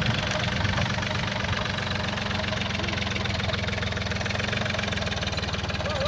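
Small diesel tractor engine running steadily with an even, rapid low chugging while it pulls a plough.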